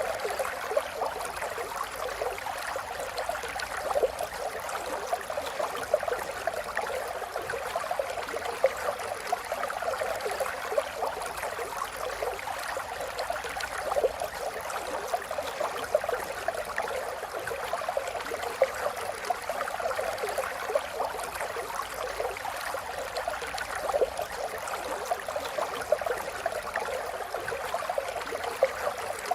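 A river flowing steadily, a continuous rush of water with many small splashes and gurgles, and a slightly louder splash about every ten seconds.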